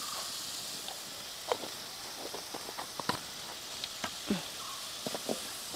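Chopped onions sizzling gently in hot oil in an aluminium kadai: a steady soft hiss with scattered small crackles and pops.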